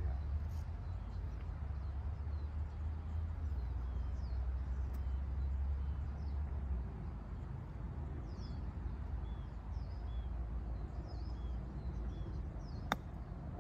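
Small birds chirping repeatedly over a steady low rumble, then a single sharp click near the end: a golf club striking the ball on a chip shot.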